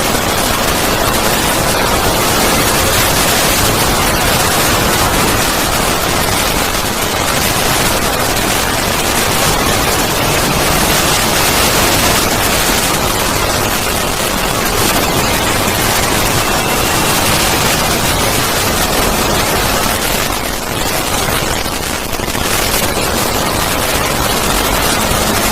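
Loud, harsh distorted static: a dense crackling hiss across all pitches with no tune, dipping slightly about twenty seconds in. This is a 'void scream' noise effect of the kind used in logo-remake videos.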